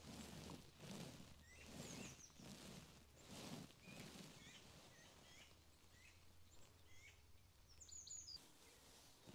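Near silence with faint bird chirps scattered through, a short cluster of them about eight seconds in. A soft rhythmic rustle, roughly twice a second, runs through the first four seconds.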